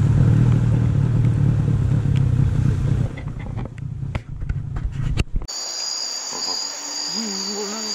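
A small riverboat's outboard motor runs with a steady low rumble and a few clicks, then stops abruptly about five and a half seconds in. Rainforest insects take over with a steady high buzz, and a short wavering call comes near the end.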